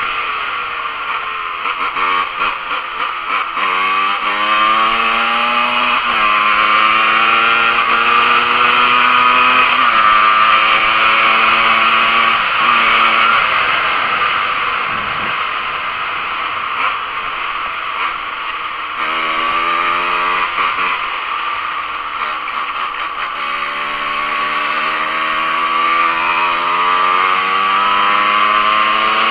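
Yamaha DT125R's single-cylinder two-stroke engine, with a Doma Racing exhaust, accelerating hard through the gears. The revs climb and fall back again and again as it shifts up. There is a short lull midway before it pulls through the gears again.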